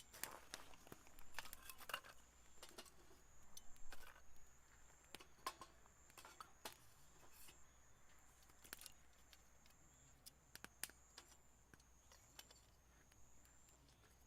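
Faint, high-pitched chirping of a grass insect, repeating short one-tone trills over and over, with scattered light clicks and ticks, most of them in the first few seconds.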